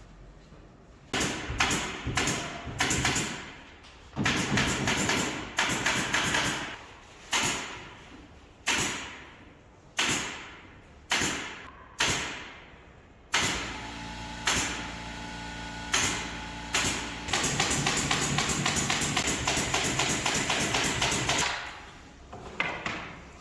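Partition-installation work: about ten sharp knocks or bangs, each dying away over about a second. Then a power tool runs continuously for several seconds and stops near the end.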